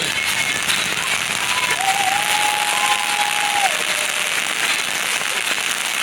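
Crowd applauding steadily, with one long held note from someone in the crowd, a cheer or whistle, from about two seconds in, lasting about two seconds.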